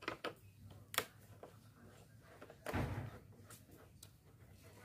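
Small clicks and light knocks of a screwdriver working the screws at the top of a motorcycle's plastic front cover, one sharper click about a second in and a duller thump a little under three seconds in.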